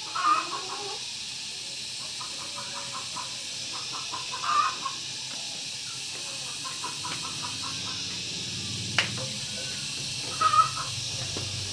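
Chickens clucking in short runs of rapid notes, with a few louder calls, over a steady hiss; a single sharp click about nine seconds in.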